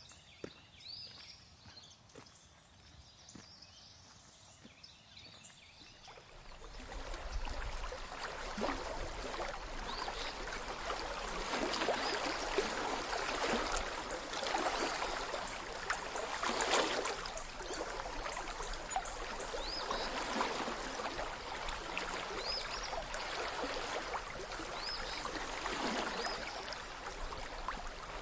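Creek water flowing and splashing, rising to a steady rush about six seconds in. A bird chirps briefly a few times over it.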